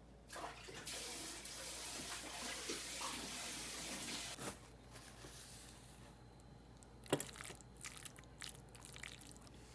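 Water running from a kitchen tap for about four seconds, then shut off, followed by a few light knocks and clicks.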